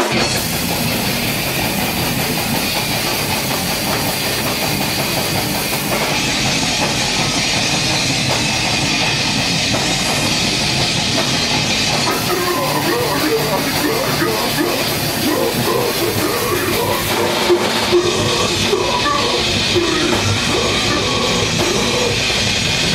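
Heavy metal band playing live, loud and dense: distorted electric guitars over a drum kit, with the cymbals growing brighter about six seconds in.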